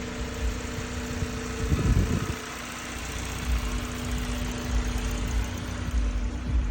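Honda Civic engine idling steadily while its cooling system is burped of trapped air after a thermostat change, with a brief louder disturbance about two seconds in.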